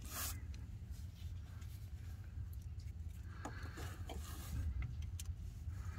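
Faint handling noises from hands working studs among engine-bay hoses: light rustling with a few small clicks and scrapes, over a low steady hum. A short rush of noise comes at the very start.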